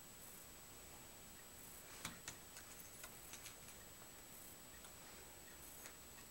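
Near silence: room tone with a faint steady high-pitched whine and a scatter of faint clicks and taps, most of them between about two and four seconds in.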